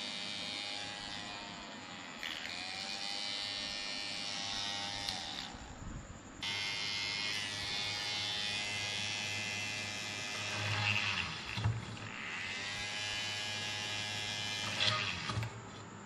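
Small DC motor of a homemade 12-volt drill whining at speed while drilling. Its pitch dips and recovers several times as the bit is loaded. It cuts out for about a second around six seconds in, then starts again.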